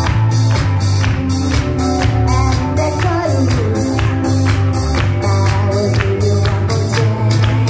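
Loud pop dance music with a steady beat, about two and a half beats a second, over heavy bass.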